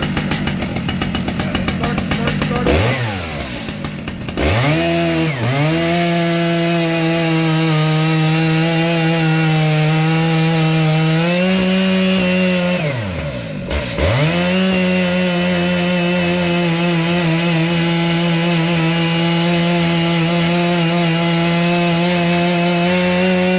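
Stihl MS 881 two-stroke chainsaw running unevenly at low speed, then revved to full throttle about four seconds in and held there. The throttle is let off and opened again about 13 seconds in, and let off once more near the end.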